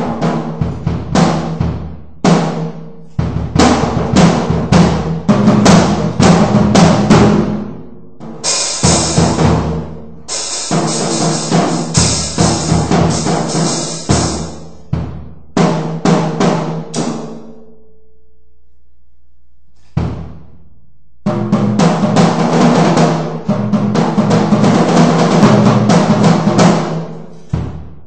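Acoustic drum kit played loosely to test its sound: runs of tom, snare and bass drum hits and fills. In the middle a cymbal rings over the hits for several seconds. Near two-thirds of the way through the playing stops briefly, with one lone hit, before the fills start again.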